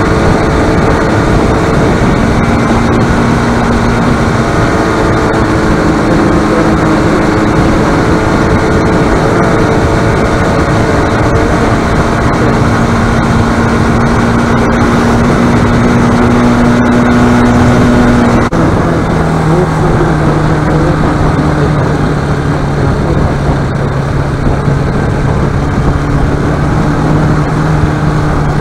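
Bajaj Pulsar RS200 single-cylinder motorcycle engine running under way with wind rush. The engine note climbs slowly and then drops sharply about eighteen seconds in, at an upshift.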